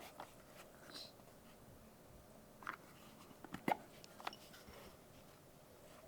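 Scattered light clicks and taps from objects being handled during an unboxing, with the sharpest click a little past halfway.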